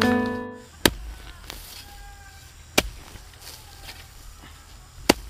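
A piano chord fades out, then three sharp chopping strikes about two seconds apart as bamboo poles are cut.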